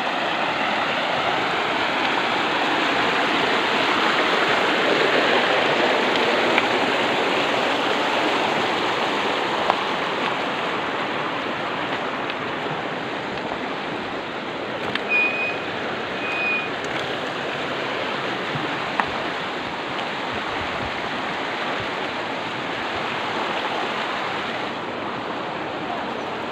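Shallow river rushing over rocky rapids: a steady rush of water, a little louder in the first several seconds, with a few sharp clicks and two brief high chirps about halfway through.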